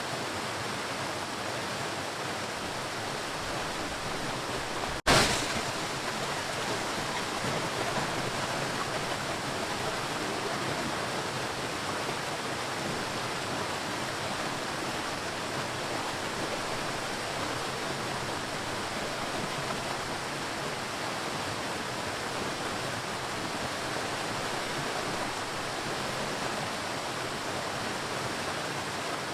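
Ocean waves: a steady, even wash of surf. About five seconds in the sound cuts out for an instant and comes back with a sudden loud surge, then settles back to the steady wash.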